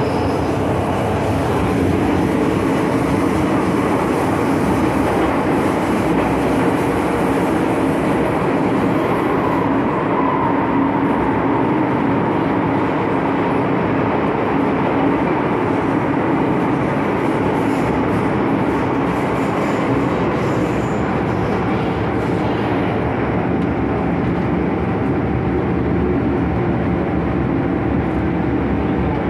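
Inside a moving MTR M-Train (Metro-Cammell electric multiple unit) carriage: steady running rumble of wheels on rail and the train's motors. Near the end it runs alongside a station platform.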